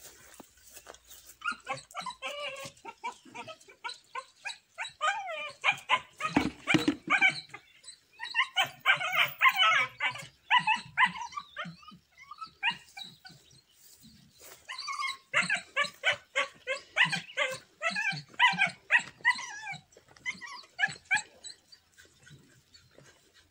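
Dogs barking and yelping in repeated bouts of quick, high-pitched calls, several a second, with pauses of a second or two between bouts.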